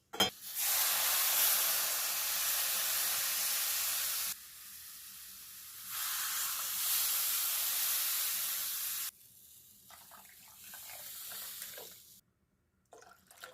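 Water poured into semolina browned in hot ghee in a pan, spitting and sizzling with a loud steady hiss of steam that swells twice and cuts off sharply about nine seconds in, leaving only faint scattered sounds.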